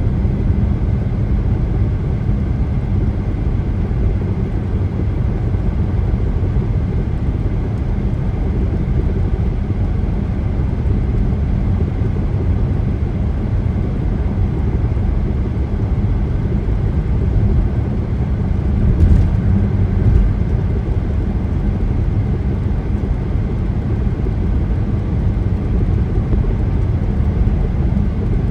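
A car driving on a highway, a steady low road and tyre rumble. Two short clicks come about a second apart, roughly two-thirds of the way in.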